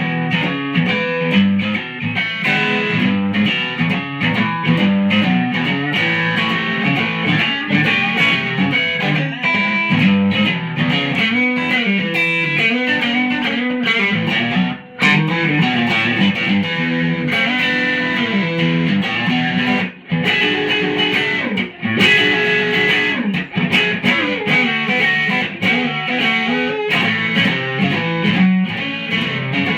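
Groves Slimeline Deluxe electric guitar played continuously through a valve amp, on its Bareknuckle Blue Note P90 neck pickup with the bass cut engaged to take the bottom end out and clean the tone up. Notes and chords run on with short breaks around the middle.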